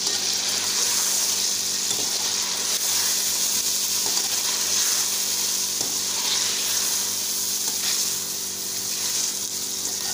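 Chicken pieces and chopped tomatoes sizzling steadily as they fry in oil in a pan, with a spoon now and then stirring and scraping them.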